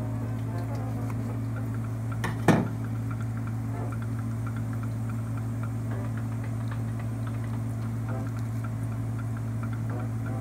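A steady low hum throughout, with faint scattered clicks and wet handling as a flounder's innards are pulled out by hand. One sharp knock about two and a half seconds in.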